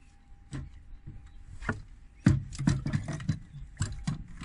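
Irregular knocks and clunks of people moving about in a wooden boat and handling the small electric outboard at its stern, the loudest knock a little past the middle, with a faint steady high tone underneath.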